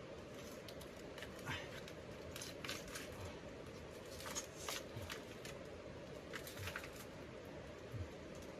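Faint crinkling and crackling of a plastic food packet being handled and opened, a few small crackles every second or so, over a steady low hum.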